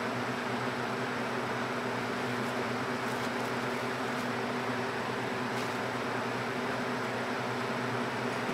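Steady mechanical hum and hiss, even throughout, with a few constant low tones and a couple of faint ticks near the middle.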